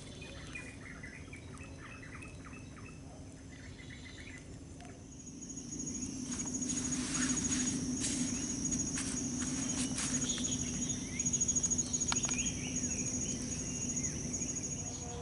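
Outdoor ambience: small birds chirping in the first few seconds, then an insect's high, rapidly pulsing trill starts about five seconds in and keeps going, over a low steady hum.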